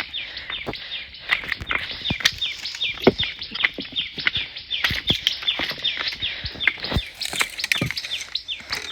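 Birds chirping in a rapid run of short, high, downward-slurred notes, about four a second, with scattered clicks and knocks underneath.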